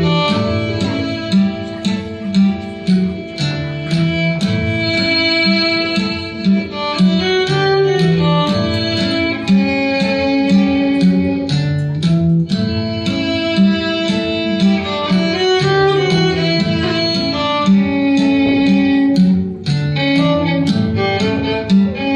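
Live folk-style string music: a fiddle melody over a plucked string accompaniment with a steady, regularly repeating bass line.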